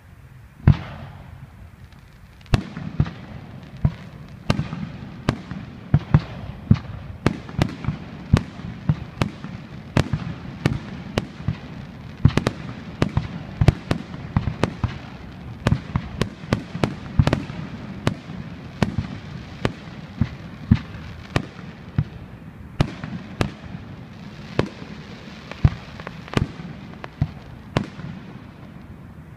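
Fireworks display: one bang about a second in, then from about two and a half seconds a rapid barrage of shell bursts, several a second, over continuous crackling.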